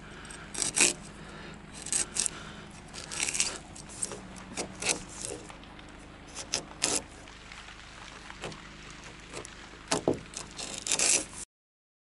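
Wide framing chisel paring wood from a timber rafter's bird's mouth, a string of short scraping strokes at uneven intervals, trimming the seat down so the ledger board sits flush. The sound cuts off suddenly near the end.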